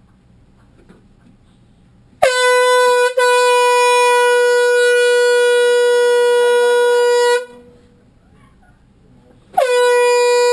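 Air horn blasting twice. First a long blast of about five seconds, broken once for an instant near its start, then a second blast about seven seconds later. Each begins with a brief downward swoop in pitch before holding one steady blaring note.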